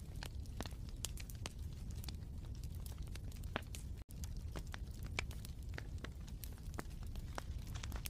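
Wood fire in a fireplace crackling: irregular sharp pops and snaps over a steady low rumble. The sound drops out for an instant about four seconds in.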